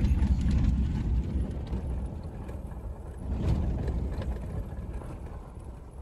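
Low rumble of a car's engine and tyres heard from inside the cabin while driving, fading gradually with a brief swell partway through.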